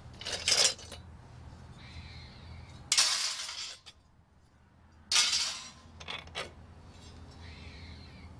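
Cover pieces being pulled off a Nissan Leaf battery pack: three sharp clacks and rattles about half a second, three seconds and five seconds in, with a smaller click a little after.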